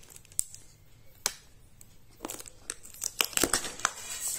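Clear plastic storage box being handled and its lid opened, with plastic packaging sleeves crinkling: scattered clicks and rustles, busier near the end.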